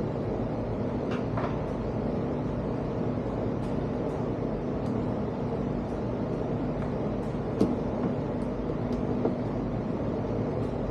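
Light clicks and taps of a screwdriver and screws while screws are worked out of a camp fridge lid's hinge. The loudest tap comes about seven and a half seconds in, over a steady low hum.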